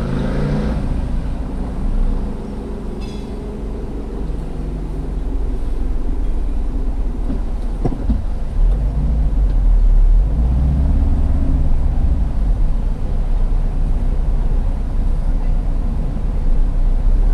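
A car driving, heard from inside the cabin: a steady low engine and road rumble, with the engine note swelling a few times. A single sharp click sounds about eight seconds in.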